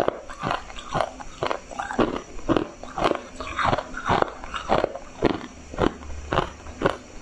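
Ice crunching between teeth as a mouthful is chewed, picked up close by a clip-on microphone: sharp crunches at an even pace of about two a second.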